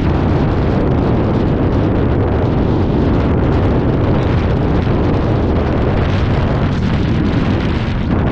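Steady, loud wind buffeting on a GoPro's microphone from riding an electric fat-tyre bike at about 28 mph.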